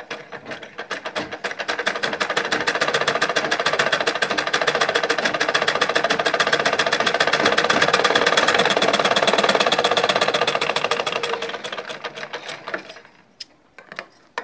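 Usha sewing machine stitching at speed: a rapid, even clatter that picks up over the first couple of seconds, holds, then slows and stops a second or so before the end, followed by a few light clicks. The machine is being run fast to show the fault of the thread breaking at high speed.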